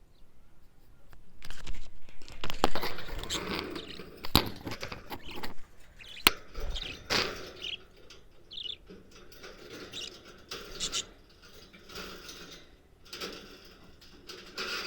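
Small parrots moving about, irregular scratching, scraping and tapping with a few short high chirps.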